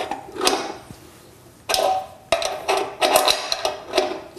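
A 13 mm wrench clinking against the steel tensioning bolt and bracket of a bandsaw's motor mount as it is turned and repositioned, running the bolt down to push the motor and tension the drive belt. Irregular clusters of sharp metallic clicks with a short ring, with a pause of about a second near the start.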